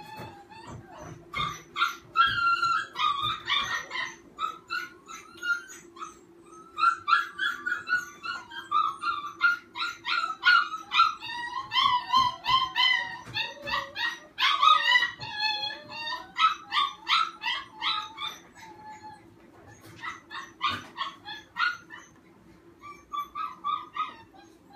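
Fearful puppy whining and yelping in high-pitched, wavering cries that come in bouts with short pauses, rising at times to a howl-like wail: the sounds of a scared pup in distress.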